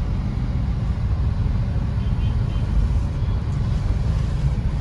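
Steady low rumble of a Maruti Suzuki WagonR moving through slow traffic, heard from inside the car: engine and road noise.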